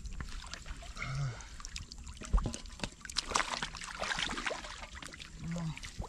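Shallow muddy water splashing and trickling in many quick irregular strokes as catfish are grabbed by hand and thrash about in it.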